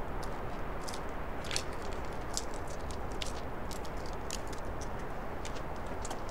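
Footsteps crunching on snow, heard as irregular light crackling clicks over a steady low hiss.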